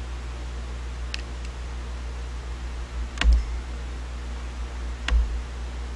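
Handling noise from a paint marker being worked on a plywood cut-out: a faint tick about a second in and two sharper knocks about three and five seconds in, over a steady low hum.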